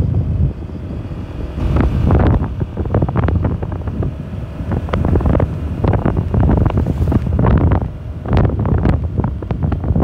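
Wind blasting the microphone on a moving motorcycle: a loud, gusting rumble that surges and dips unevenly.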